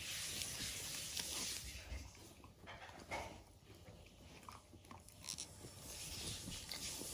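A dog gnawing a rawhide chew held in a hand: scattered wet chomps and crunching.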